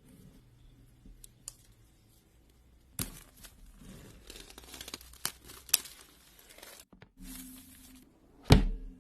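Packaging of an Apple Magic Keyboard box being torn open: a few faint clicks, then from about three seconds in a stretch of tearing and crinkling with sharp snaps, a short pause, more rustling, and one loud thump near the end.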